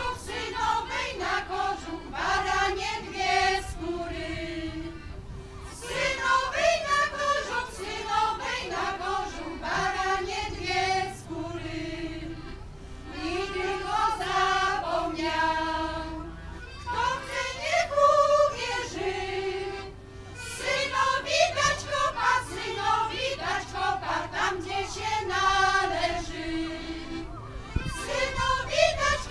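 A folk choir of women's voices singing a song in long phrases, accompanied by an accordion.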